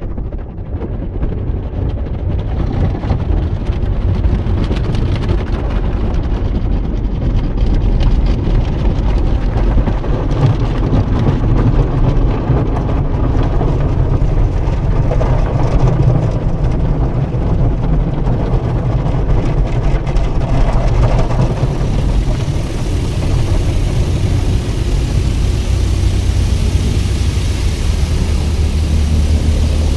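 Automatic car wash heard from inside the car's cabin: cloth brushes and water spray working over the car in a steady, loud rumble. About two-thirds of the way through, a brighter hiss joins as water sheets down the windshield.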